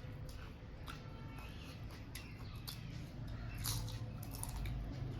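Quiet eating sounds: a handful of soft clicks and mouth smacks scattered through, over a low steady hum.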